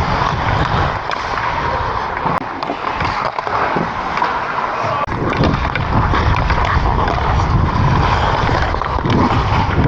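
Ice hockey skate blades scraping and carving on the ice, heard close up from a player's helmet camera, with wind rumbling on the microphone that eases briefly midway. A few sharp clicks cut through.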